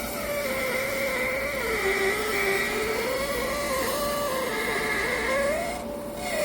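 Countertop nugget ice maker running: a steady mechanical hum whose pitch sags and climbs again, wavering over a few seconds, with a brief dip near the end.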